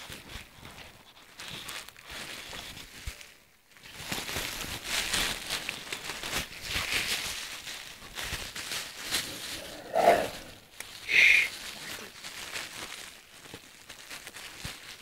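Stray puppies scuffling and rustling right against the microphone, with two short high squeals from a puppy in quick succession about ten seconds in.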